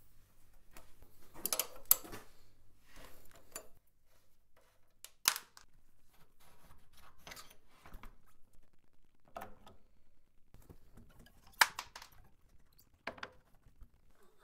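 Scattered sharp metallic clicks and clinks of parts and tools as a motorcycle front wheel is taken off: the split pin worked out of the axle nut, then the axle, wheel and brake panel coming free. The loudest clinks fall about two, five and twelve seconds in.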